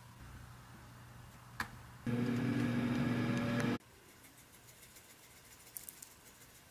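A click, then a kitchen appliance running with a steady electrical hum for under two seconds that cuts off suddenly. Near the end, a few light ticks from a dried-parsley shaker.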